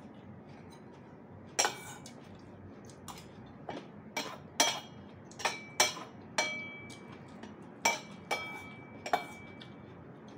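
Cutlery clinking against a bowl of noodles: about ten sharp, irregular clinks, some ringing briefly.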